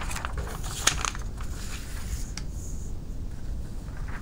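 Sheets of notebook paper being moved and set in place on a desk: light rustling with scattered clicks and a sharp click about a second in, over a steady low background hum.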